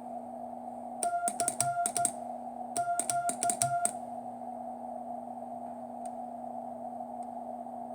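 QRP Labs QCX transceiver's sidetone beeping Morse code as a CQ call is keyed: two short runs of on-off beeps about a second apart, each beep edged by a sharp click from the key. Between and after them the 40 m band receiver hiss and a low hum run steadily.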